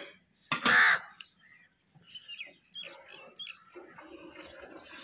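A crow caws once about a second in, followed by faint chirping of small birds.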